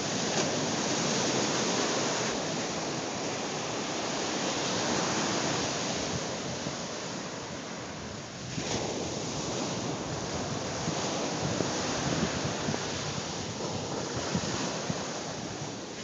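Ocean surf breaking and washing up on the beach, mixed with wind buffeting the phone's microphone; the rush swells and eases, with a dip about halfway through.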